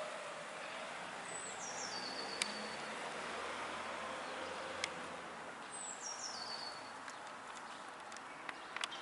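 Outdoor ambience with a steady hiss, through which a small songbird sings a short trill that steps down in pitch, twice, a few seconds apart. A couple of sharp ticks fall between the two songs.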